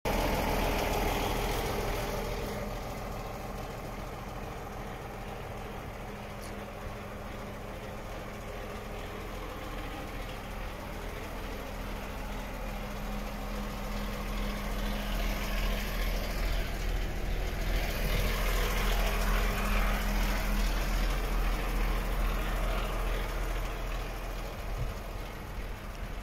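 DAF XF 460 tractor unit's PACCAR MX-13 straight-six diesel idling steadily with an even low throb. It is louder near the start and again about two-thirds of the way through.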